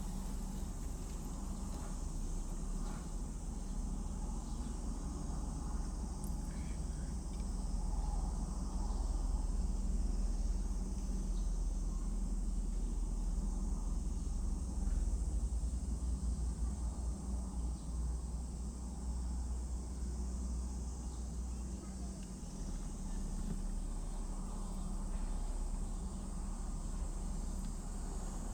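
Steady background noise: a low rumble with a constant high-pitched hiss above it and no distinct events.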